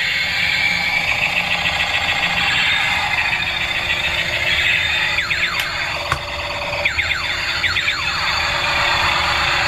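Electronic siren-like sound effects from a battery-operated bump-and-go Army Hummer transformer toy. A high wavering tone runs through the first half, and repeated sweeping whoops take over about halfway through.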